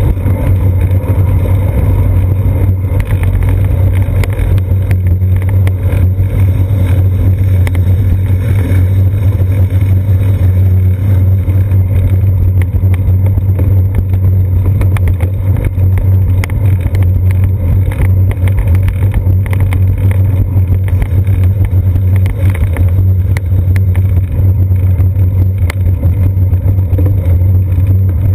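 Steady loud rumble of road vibration and wind on a seat-post-mounted action camera as a bicycle rides along a concrete sidewalk, with small scattered knocks from the tyres and frame.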